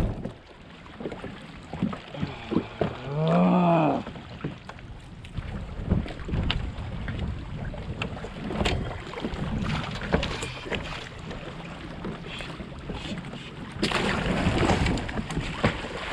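Knocks, clicks and water movement from someone shifting about and handling gear in a kayak. About three seconds in comes a brief pitched groan that rises and falls.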